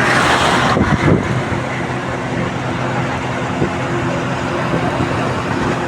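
Vehicle and road noise: a steady engine hum under a rushing noise, swelling louder in about the first second.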